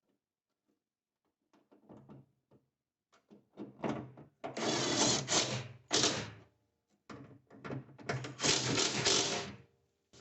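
Hands and tools at work on a car trunk latch being fitted: scattered clicks and knocks, then two stretches of dense rattling and scraping, each a second or two long.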